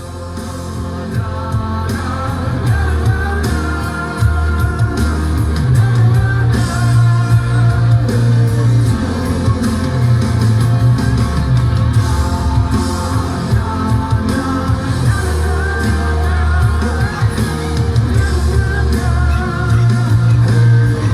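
A rock song with singing, guitar and heavy bass, played loud through a PA pair of a PS TT-12M 12-inch top speaker and a PS SUB905s 15-inch subwoofer as a sound test. It builds in level over the first few seconds.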